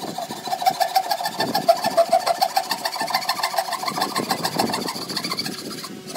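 Hand saw cutting into a clamped softwood board, its back-and-forth strokes rasping through the wood. A steady ringing tone runs under the rasp.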